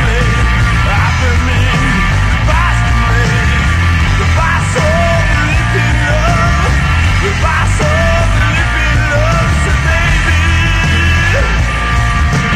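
Loud punk rock recording: electric guitar, bass and drums playing a dense, steady rock track.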